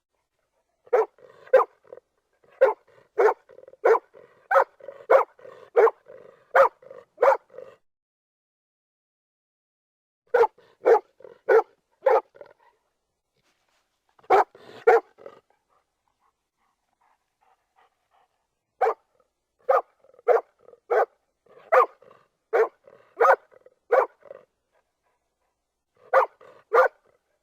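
A dog barking in quick runs of sharp barks, about one to two barks a second, with a few seconds of silence between runs.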